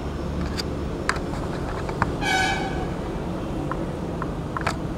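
Steady low background rumble with a few light clicks as a steel ruler is handled against a wax occlusal rim. About two seconds in comes a brief, horn-like toot.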